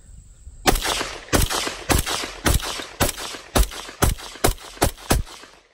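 AR-15 pistol with a 10.5-inch barrel in 5.56 NATO firing ten semi-automatic shots, about two a second and coming slightly faster toward the end, emptying a 10-round magazine.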